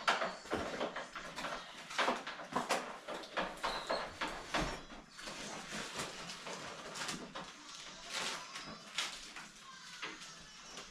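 Irregular knocks, clatter and scraping of shower unit parts being handled and fitted together, with a few short squeaks.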